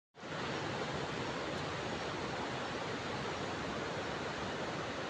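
Steady rushing noise with no distinct events, starting abruptly out of silence just after the start.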